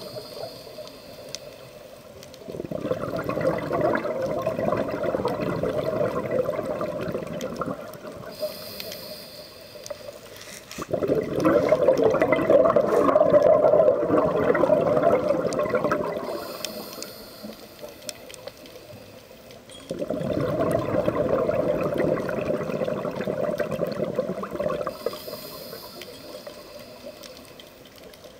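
Scuba diver breathing through a regulator underwater: three long bubbling exhalations, the loudest in the middle, each followed by a short hiss of the next inhaled breath.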